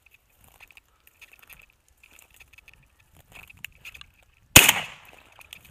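A single loud shot from a Franchi Affinity 20-gauge shotgun about four and a half seconds in, with a short ringing tail. Before it, faint crunching of footsteps through dry grass.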